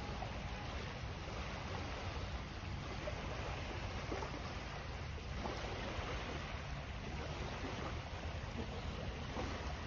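Small waves gently lapping on a sandy shore of calm bay water, over a steady low rumble of wind on the microphone.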